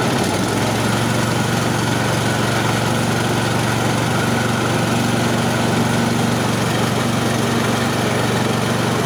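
KD500 WG mini rice milling machine running steadily under belt drive while rice passes through it, a loud continuous mechanical hum. Its note shifts slightly just after the start as the outlet control is adjusted.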